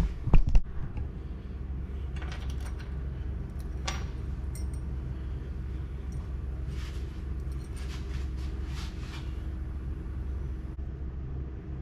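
A few loud knocks at the start, then scattered light metallic clicks and clinks from handling screws and hardware, over a steady low hum.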